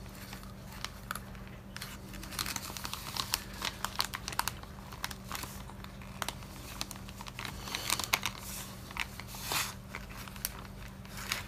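Plastic Ziploc bag crinkling and rustling in irregular soft crackles as hands unfold and smooth a folded paper napkin flat inside it. A faint steady low hum runs underneath.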